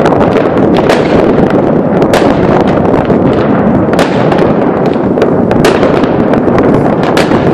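Many fireworks and firecrackers going off at once across a city: a loud, unbroken din of overlapping bangs with frequent sharper cracks.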